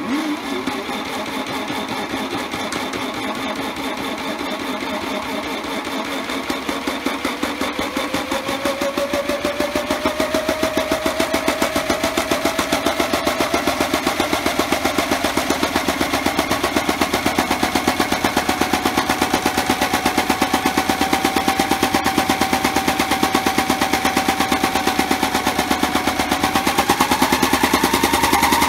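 Modified toy washing machine in its spin cycle with an unbalanced load of rags: the small motor's whine climbs in pitch as the drum speeds up, steadies, then rises again near the end. Over it comes a rapid, continuous rattling and banging from the load being out of balance, growing louder as the speed rises.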